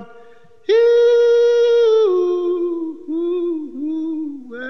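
A single unaccompanied voice sings a wordless line: one long high note held for over a second, then a lower note that wavers and dips several times.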